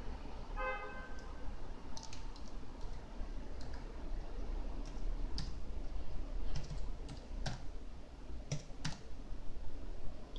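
Irregular clicks of typing on a computer keyboard over a steady low hum, with a brief pitched tone just under a second in.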